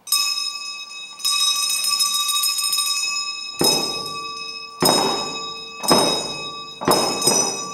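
Reba dance percussion: a bell struck suddenly and left ringing, struck again about a second in. From about halfway, a steady beat of strikes roughly once a second, each with a low thud and more bell ringing.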